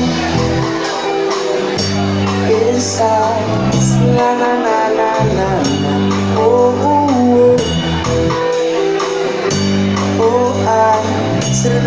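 Live rock band playing through a PA: electric guitar and drum kit with a steady beat, and a melodic line over sustained low notes.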